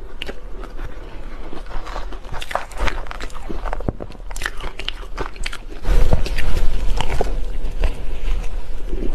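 Close-miked crunching and chewing of a mouthful of shaved ice, a dense run of irregular crunches, with a metal spoon scraping through the ice in the bowl. The crunching grows much louder and heavier about six seconds in.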